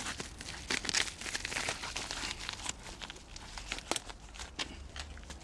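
Rustling and crinkling with irregular light clicks and knocks as items are handled and taken out of a box, busiest in the first couple of seconds.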